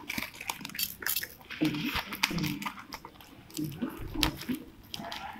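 Black plastic parcel wrap and packing tape crinkling and tearing as it is pulled apart and cut with scissors, in irregular rustles and rips.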